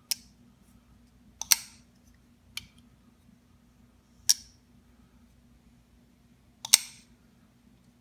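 Emerson Rangemaster Sheepdog flipper knife being flipped open on its ball-bearing pivot and closed by hand, the blade snapping into place. Five sharp snaps a second or two apart, the loudest about a second and a half in and near the end.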